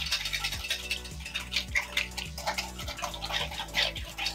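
Wire whisk beating a soy-sauce, oil and sugar dressing in a stainless steel bowl: the wires clink against the metal at about two strokes a second, with the liquid sloshing. It is being whisked hard to dissolve the sugar.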